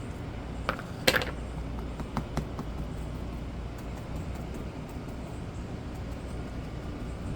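A few light clicks and taps, the loudest about a second in, from painting supplies being handled, over a steady low rumble.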